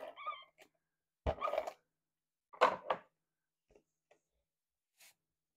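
Paper and card being handled and pressed onto a scrapbook page: two short rustling knocks, then a few faint ticks.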